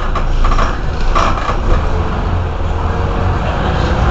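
Mercedes-Benz O 405 N city bus's rear-mounted diesel engine idling with a steady low rumble while the bus stands still. A few short higher sounds come in the first second and a half.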